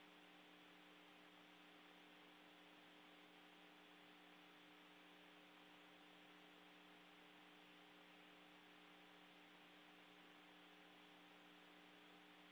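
Near silence: a faint, steady hum with hiss, unchanging throughout.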